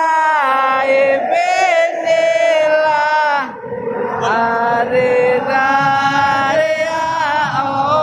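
Background music: a voice singing long, drawn-out, chant-like notes that slide between pitches, with a brief break about three and a half seconds in.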